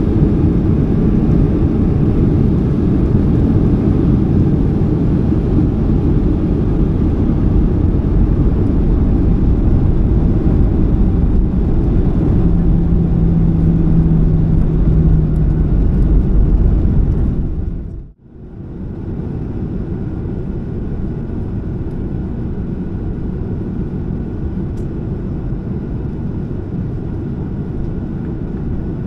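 Cabin noise of a Boeing 737-700 rolling out on the runway just after landing: a loud, steady low rumble of wheels and engines, with a brief steady hum partway through. About two thirds of the way in the sound cuts out abruptly, then resumes as a quieter, steady rumble as the jet slows to taxi.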